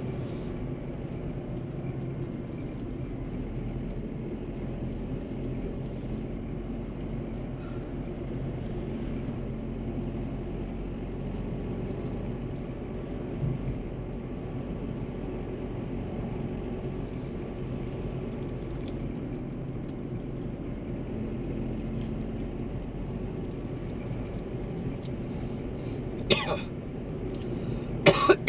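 Renault Triber's three-cylinder petrol engine and road noise, steady while driving. A person coughs near the end.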